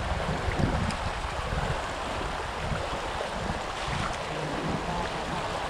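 Steady rushing of river water, with wind buffeting the microphone in an uneven low rumble.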